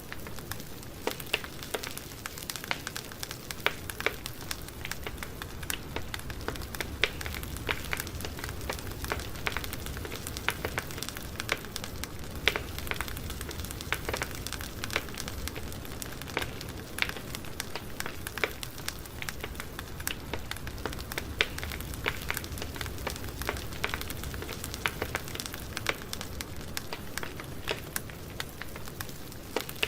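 Campfire burning steadily with a low rumble, crackling and popping in frequent sharp snaps.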